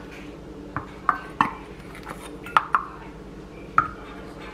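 Stainless steel measuring cup clinking and tapping as flour is scooped into it: about six short, separate clinks, a few with a brief metallic ring.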